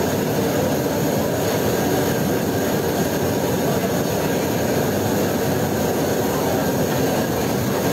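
Steady, loud roaring noise of a commercial fry kitchen, unbroken and even.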